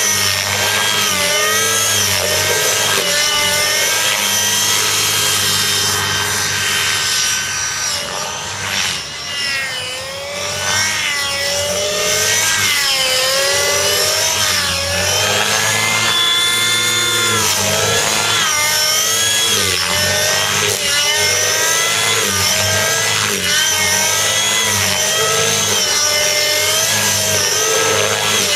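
Radio-controlled nitro helicopter (Gaui NX4 with a Gaui 37SZH glow engine and muffler) in hard 3D flight: the small engine and rotor head scream at high revs, the pitch sliding up and down over and over as the rotor is loaded and unloaded through the manoeuvres. It is briefly quieter about eight to ten seconds in.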